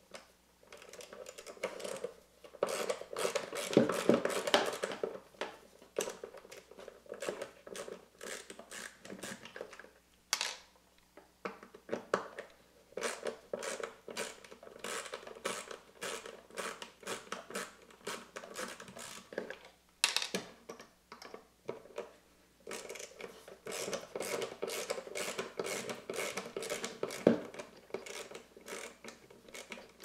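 Screwdriver and hands working the hard plastic chassis of a Saeco Talea Ring Plus espresso machine during a teardown: irregular clicks, taps and scrapes of the tool and parts, in busy flurries, with one sharp knock near the end.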